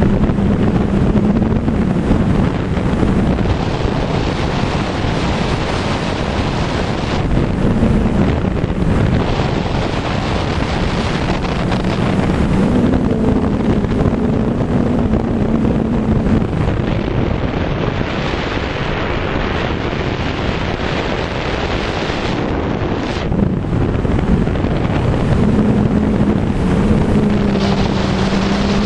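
Heavy wind buffeting on the microphone of a rider moving fast downhill, with a low hum from the vehicle that comes and goes and wavers a little in pitch.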